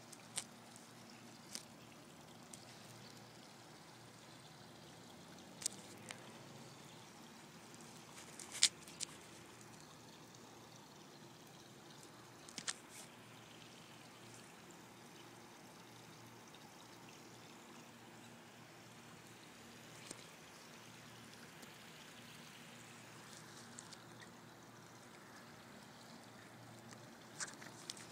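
Faint steady background noise broken by a handful of sharp clicks and knocks, scattered irregularly, from a phone being handled with its lens covered.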